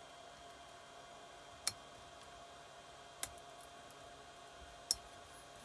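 Three short, sharp clicks about a second and a half apart as a piston ring is worked into its groove on the Keeway TX125's piston, over a faint steady hum.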